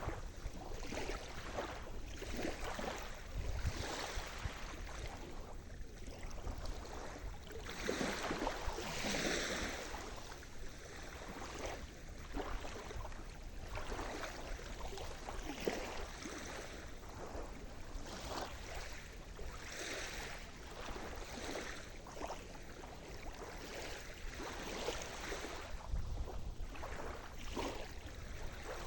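Sea surf: waves washing in and breaking on the shore, swelling and ebbing every few seconds, with one fuller wash about eight seconds in.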